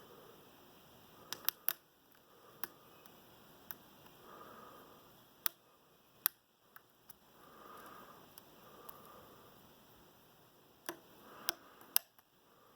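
Lock picks working in an American 1165 padlock's six-pin core, making a dozen or so small, sharp clicks and taps at irregular intervals over soft handling rustle.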